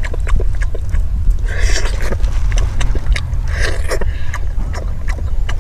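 Wind rumbling on the microphone, over close mouth noises of someone eating fried pork: chewing, small wet clicks and smacks, with short rustling bursts about two seconds apart.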